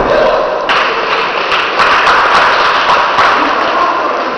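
Spectators shouting and clapping in a large sports hall, swelling loudly about a second in, with scattered sharp claps through the middle.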